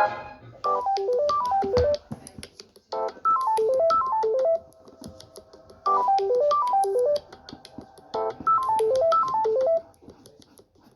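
Samsung Galaxy A14 ringtone playing: a short melody of quick notes zigzagging downward in pitch, played four times with brief pauses between.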